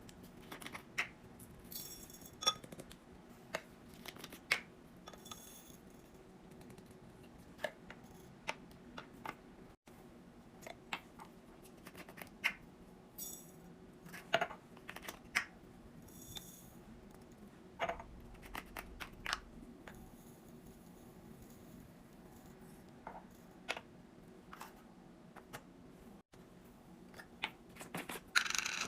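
Food containers and bottles being handled and set down while a fridge is restocked: scattered light clicks, taps and knocks, a few high ringing clinks like glass or hard plastic, and a louder cluster of clatter near the end, over a faint steady hum.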